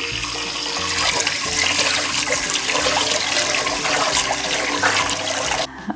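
Tap water pouring into a stainless steel pot of basmati rice in a steel sink while a hand swirls the rice to wash it. The running water is steady and cuts off suddenly near the end.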